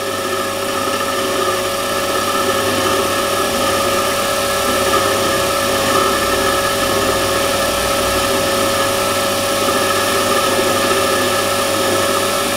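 Warco WM180 mini lathe running: a steady motor and gear whine with several fixed tones, a little louder over the first couple of seconds, as a Glanze indexable left-hand turning tool, fed by hand, takes a light 0.25 mm cut.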